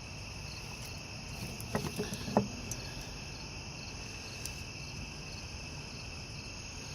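Crickets chirping steadily in the night background, with a few light clicks about two seconds in.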